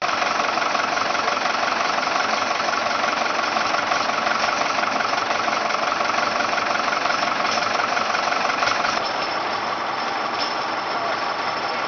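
International Drott skid shovel crawler loader's engine running steadily with an even firing beat as the machine moves off; it drops a little in level about nine seconds in.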